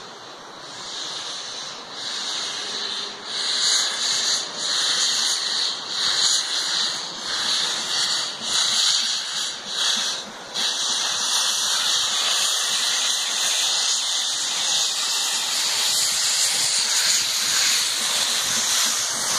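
LMS Princess Coronation Class steam locomotive 46233 Duchess of Sutherland working a train with a rhythmic exhaust beat that grows louder as it approaches. About ten seconds in, this gives way to a steady loud rush of steam and hiss as it passes close by.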